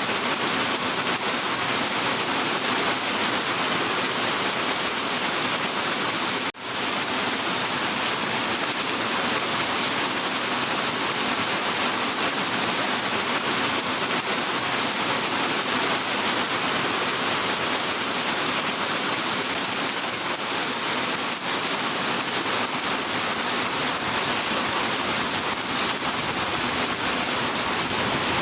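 Steady rain falling, a dense, even hiss. It cuts out for an instant about six and a half seconds in.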